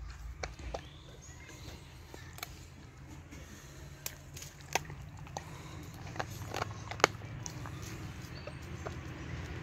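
A dog eating food off the ground, with scattered sharp crunches and clicks of its chewing over a low steady rumble; the loudest crunch comes about seven seconds in.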